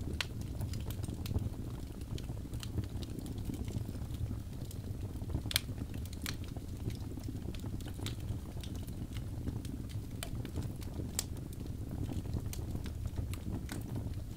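Wood fire crackling in a fireplace: irregular sharp pops and snaps over a steady low rumble of the flames, with a few louder pops, one about five and a half seconds in.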